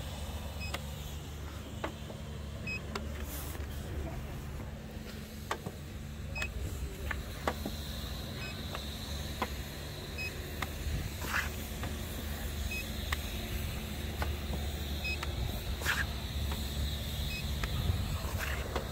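Handheld paint-thickness gauge giving a short, faint beep every few seconds as it takes readings on the car body, with occasional clicks over a steady low hum.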